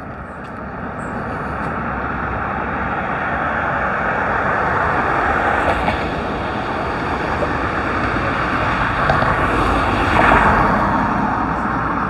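Steady rush of road traffic, gradually growing louder and peaking about ten seconds in.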